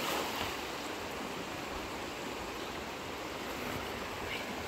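Steady rush of fast-flowing river water. At the very start the splash of a cast net landing on the surface dies away.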